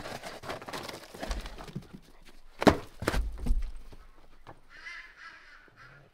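Footsteps and scuffling on the ground, with a sharp thump of a soccer ball being kicked about two and a half seconds in and a softer knock just after.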